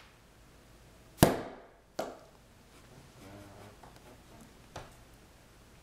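A hand slaps hard against a wooden surface twice, about a second in and again under a second later, followed by a lighter knock near the end.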